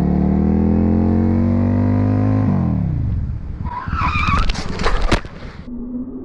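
Motorcycle engine accelerating, its pitch climbing steadily, then falling sharply about two and a half seconds in as the throttle is closed. About a second later a tyre squeal skids for around two seconds, with a few sharp clicks, and cuts off near the end.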